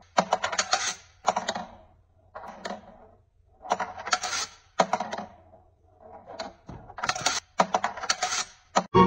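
Metal-wire kinetic desk toy clicking and rattling as a cat paws at its wire track, in about ten short bursts of rapid clicks with brief pauses between them.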